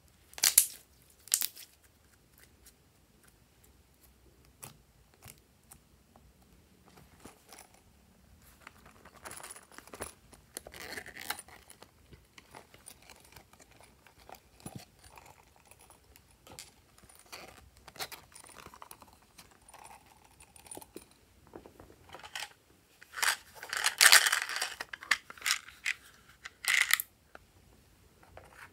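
Small plastic containers being handled and opened, with sharp clicks and rattles, and small plastic charms and beads tipped out onto trays of slime. There are two sharp clicks at the start, and the loudest rattling spell comes about three-quarters of the way through.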